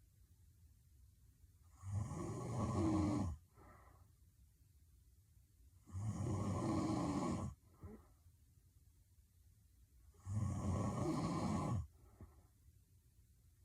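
A young woman snoring hard in her sleep: three loud snores about four seconds apart, each lasting about a second and a half, with a short faint breath after each.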